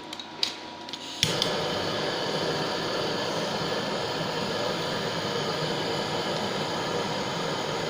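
A couple of small clicks, then a gas torch flame comes on suddenly about a second in and burns with a steady hiss, used to melt solder for casting.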